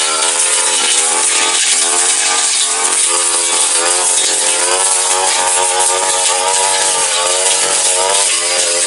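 Backpack brush cutter's small petrol engine running at high revs, its pitch repeatedly rising and falling as the blade sweeps through grass and small woody shrubs.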